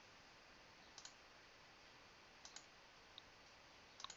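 Computer mouse button clicked three times, about a second and a half apart, each a quick double tick of press and release, with a fainter tick between the last two; the clicks advance a slideshow animation step by step. The background is near silence.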